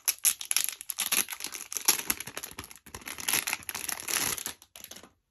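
Clear plastic wrapper crinkling as it is pulled open by hand around a small boxed ring, in quick irregular crackles that stop near the end.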